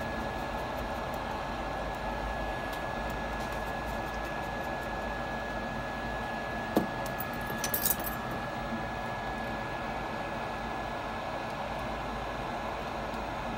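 Steady hum and hiss of workbench equipment with a thin steady high whine. A sharp click comes about seven seconds in, followed a second later by a short cluster of small clicks and clinks as the iPhone and a small tool are handled.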